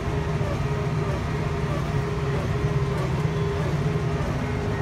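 Tractor engine running steadily, heard from inside the cab: a low drone with a steady whine above it.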